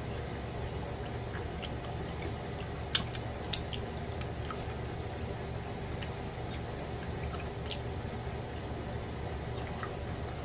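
Close-miked eating sounds of a man chewing pork chop meat picked off the bone with his fingers: scattered mouth clicks and smacks, the two loudest sharp clicks about three seconds in and half a second apart, over a steady low hum.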